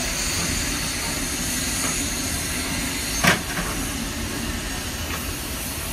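Baldwin-built C-19 2-8-0 narrow-gauge steam locomotive rolling slowly past, with a steady hiss of steam and running noise. A single sharp clank about three seconds in.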